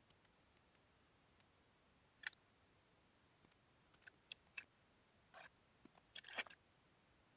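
Near silence with a few faint, short clicks and taps scattered through it, the strongest group near the end.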